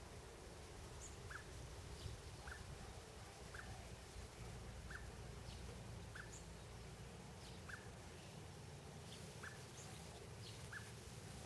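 Faint short chirps from an unseen small animal, about one every second or so, over a low rumble.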